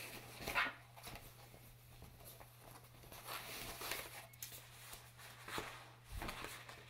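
Rummaging and handling sounds: scattered soft knocks and rustles as a project folder is found and picked up, the sharpest knock about half a second in and a dull thump near the end.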